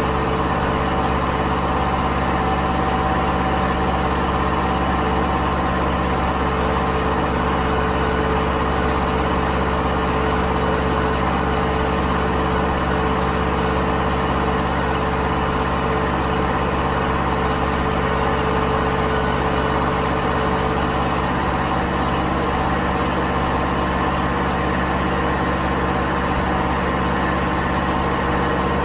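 Zetor 7011 tractor's 3.6-litre four-cylinder diesel engine running steadily at a constant pitch while the tractor drives along the road, heard from the driver's seat.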